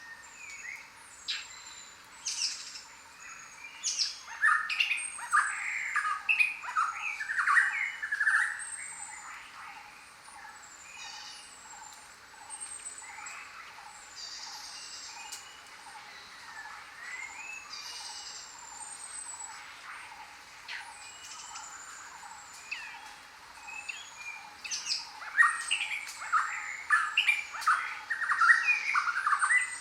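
A chorus of several birds chirping and singing together in the jungle, with repeated thin high whistles throughout and two busy stretches of louder, rapid calls, one a few seconds in and one near the end.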